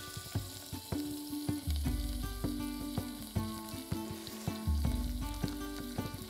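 Crab meat, onion and tomato sizzling in a stainless steel saucepan while the crab's head juices and coral are scraped in from a glass bowl with a spatula, giving many small clicks and scrapes over the steady sizzle. Soft background music plays underneath.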